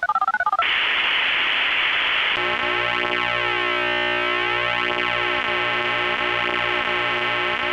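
Loud synthesized electronic sound. A rapidly pulsing two-pitch tone cuts off about half a second in and gives way to a hiss of static. About two seconds in, a steady buzzing drone with a slow sweeping, phasing sound takes over.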